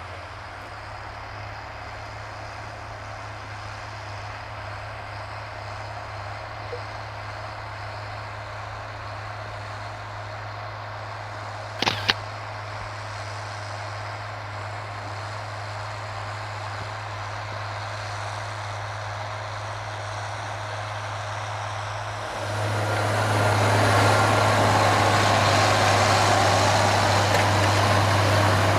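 Farm tractor engine running steadily under load with a low hum, getting clearly louder about two-thirds of the way through; a single sharp knock near the middle.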